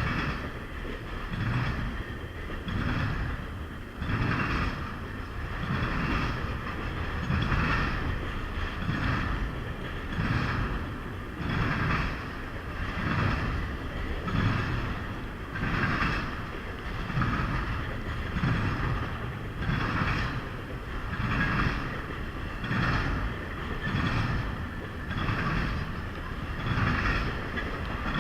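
Freight train cars rolling past, their wheels clacking over rail joints in a steady beat of about one clack group a second.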